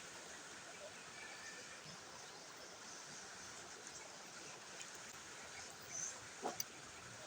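Steady rush of a flowing river, with a brief high sound and two sharp clicks near the end.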